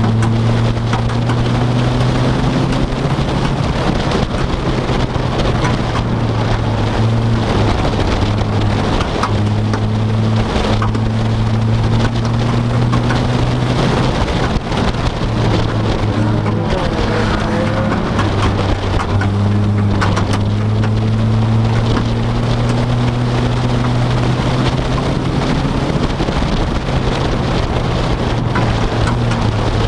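Vehicle engine droning steadily inside the cabin. Its pitch rises slowly and drops back a few times, over a constant crackling noise.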